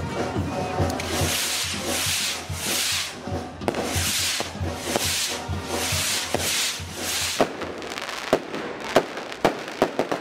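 Fireworks: spark fountains hissing and spraying, the hiss surging in and out about twice a second. About seven seconds in, a run of about six sharp bangs from firecrackers and bursting shells.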